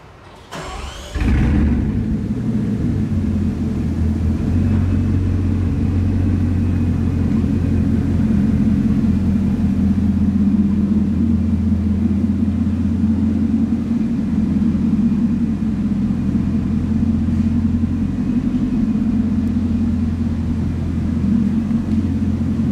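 Bugatti Chiron Super Sport 300+'s quad-turbo W16 engine being started. A short rising starter whine about half a second in, then the engine catches just after a second and settles into a steady, even idle.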